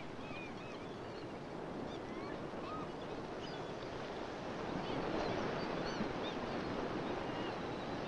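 Surf washing, an even rushing noise that swells a little about halfway through, with a few faint short high chirps over it.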